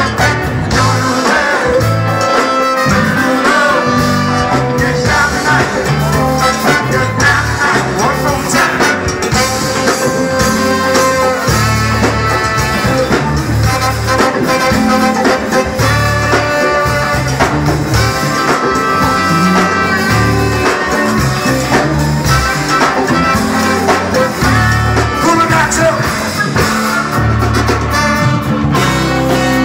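Live funk and soul band playing: a horn section of saxophone, trumpet and trombone over drum kit, congas and bass, with sung vocals.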